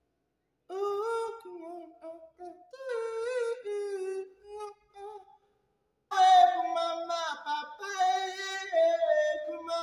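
A man singing unaccompanied in a high, childlike ventriloquist's puppet voice. After a short pause about five and a half seconds in, a louder sung phrase follows, which he sings openly in his own voice.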